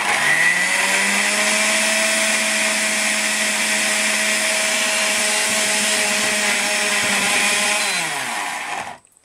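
Laretti countertop blender motor running on its puree setting. It spins up at the start, runs at a steady pitch, then winds down with a falling pitch about eight seconds in and stops. The blades spin without catching the large chunks of zucchini and banana, which stay mostly whole in the jar.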